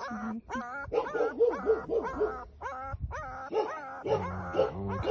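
Tiny puppy crying while held and wiped clean: rapid, repeated high-pitched squeals, about three a second, each falling in pitch.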